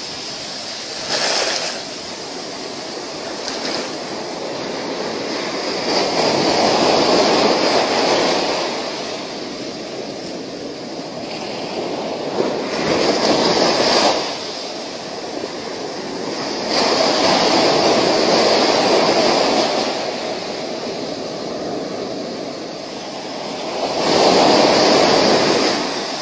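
Surf breaking on a sandy beach: a steady hiss of waves that swells and fades about every five or six seconds.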